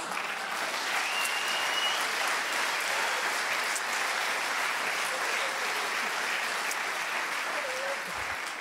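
Theatre audience applauding: a sustained round of applause that swells about a second in and tapers off near the end.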